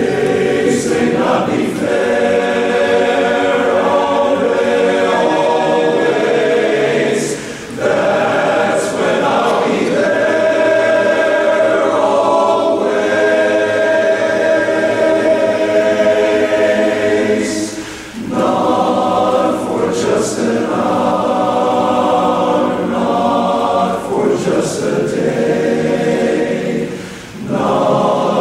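Large men's chorus singing a cappella: sustained, full chords in long phrases, with brief breaks about 8, 18 and 27 seconds in.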